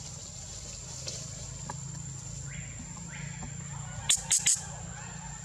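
A steady, high-pitched insect drone in forest, with three quick sharp clicks in a row about four seconds in.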